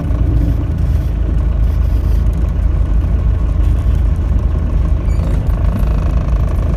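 Motorhome engine running and tyres on the road while driving, heard from inside the cab as a steady, mostly low sound.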